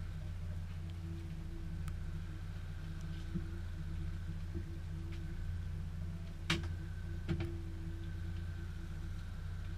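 Boat engine running steadily with a low hum. A little past halfway there are two sharp knocks, about a second apart.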